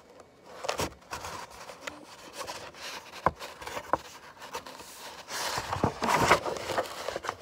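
Picture book's paper pages being handled and turned: soft rubbing and sliding of paper, a light tap about three seconds in, and a louder rustle of the page turn a little past five seconds in.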